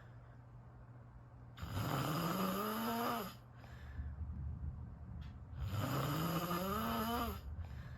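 A person snoring: two long snores, each rising in pitch, about four seconds apart.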